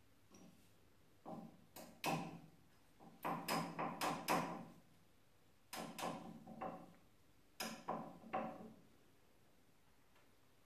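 Mosaic hammer striking Venetian smalti held on a hardie set in a wooden block, cutting tesserae: sharp clacks that ring briefly, in three runs of several strikes with short pauses between.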